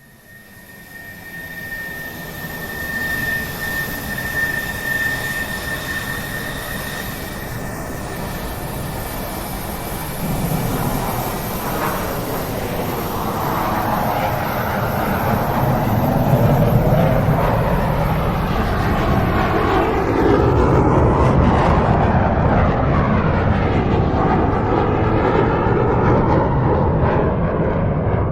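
Airbus jet airliner flying past: a steady high engine whine fades in first, then a broad rumble builds and grows louder through the rest, taking on a sweeping, phasing quality.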